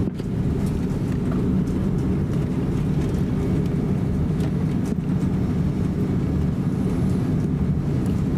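Airbus A330-300 cabin noise on a night approach: a steady low rumble of engines and airflow with a constant hum underneath, unchanging throughout.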